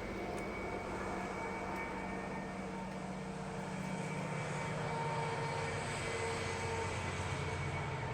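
Low, steady drone of a distant passing engine, its lowest pitch dropping slightly about halfway through.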